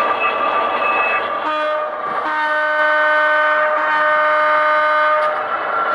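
Diesel horn played by an HO-scale locomotive's DCC sound decoder: one short blast, then a long blast held about three seconds, over a steady running noise.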